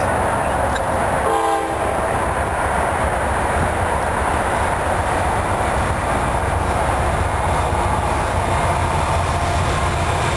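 CSX freight train approaching a grade crossing: a steady, loud rumble, with a short horn note about a second and a half in.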